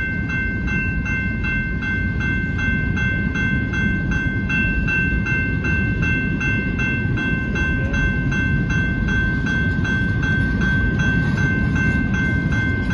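Freight train of loaded rock cars rolling steadily past at close range with a continuous low rumble. The grade-crossing warning bell rings in an even beat, about two strokes a second.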